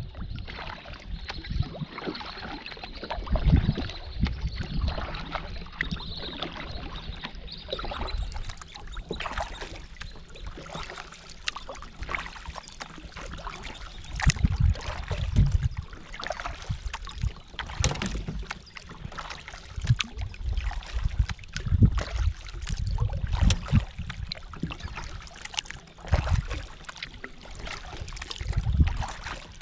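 Double-bladed kayak paddle stroking through the water, with water trickling and dripping off the blades. Irregular low thumps every second or two are louder than the water.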